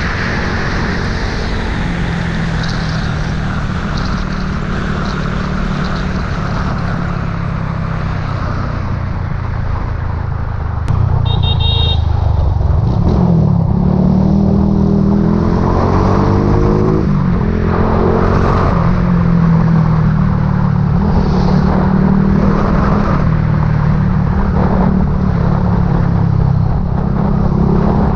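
Motorbike engine running while riding, with wind and road noise; the engine note shifts with speed and rises for a few seconds about halfway through. The sound gets louder about eleven seconds in, and a brief high-pitched beep sounds just after.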